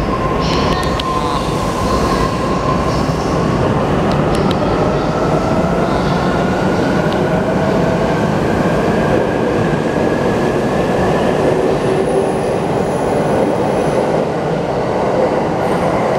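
E259 series Narita Express six-car electric train pulling out and accelerating past, its traction motor whine rising steadily in pitch over the rumble of wheels on rail.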